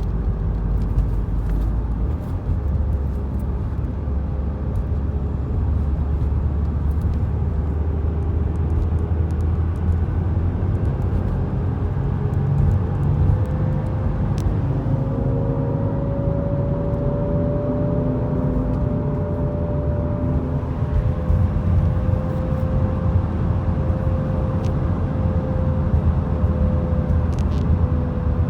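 2017 Subaru WRX on the move, with a steady low road rumble and a whirring tone that slowly rises and falls in pitch. The owner suspects a bad rear wheel bearing.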